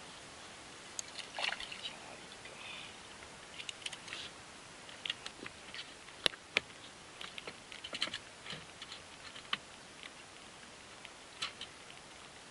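Scattered light clicks and knocks of fishing tackle being handled, irregular and a few a second at times, over a faint steady hiss.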